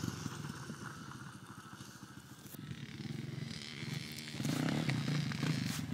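Small dirt bike engine running at a distance with an even, pulsing note, getting louder from about halfway through as the bike comes closer.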